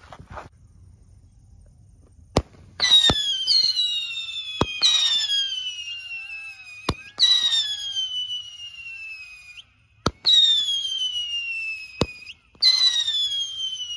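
Whistling fireworks cake firing its shots: a run of shrill whistles, each falling in pitch over about two seconds, with sharp cracks between them. The first starts a couple of seconds in.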